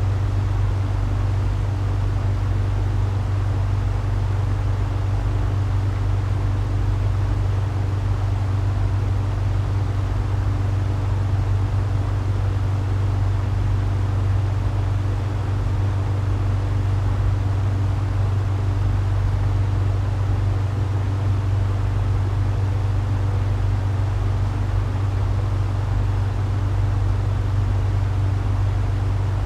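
Engine of a large propeller airplane running steadily: a deep, even drone with a low hum and propeller noise, unchanging throughout.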